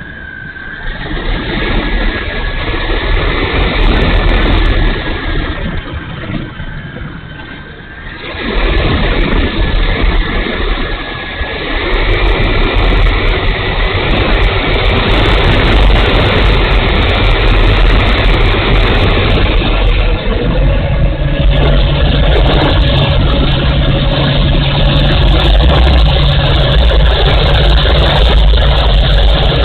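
Electric motor and propeller of a small foam RC model warplane running with a steady high whine under heavy wind rush. The sound drops briefly about six seconds in, then comes back louder from about eight seconds.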